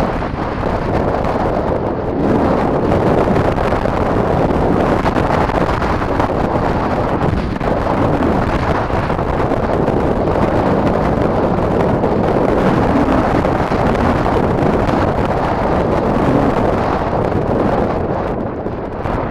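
Wind buffeting a helmet-mounted camera's microphone on a moving trail motorbike, over the engine's steady running. The rush is continuous and loud, with no clear engine note rising above it.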